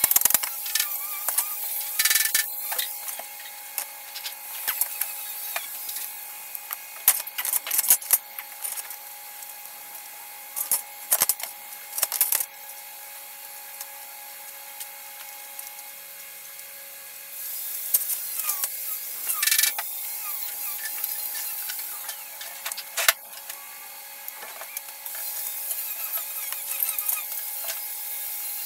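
Tool work on stainless-steel sign letters: irregular scraping and rubbing, with sharp louder strokes every second or few, over a steady two-tone hum. The strokes go quieter for a few seconds in the middle.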